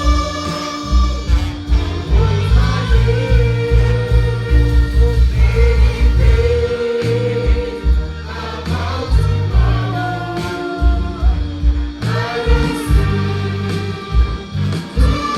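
Gospel music with singers, which sounds like a choir, over a band with a strong, pulsing bass line. The voices hold long notes.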